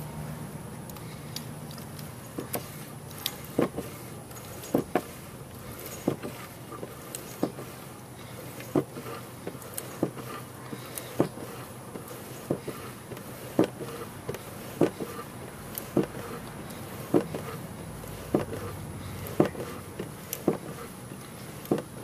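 Slime tire sealant being hand-pumped through a hose into a golf cart tire's valve stem: a sharp click at a steady pace of about one per second, one for each pump stroke.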